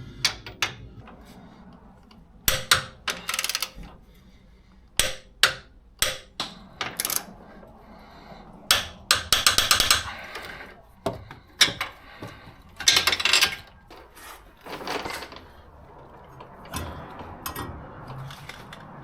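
A ratcheting torque wrench clicking in short bursts, with sharp metallic clanks between them, as bolts are run down and torqued to 70 foot-pounds.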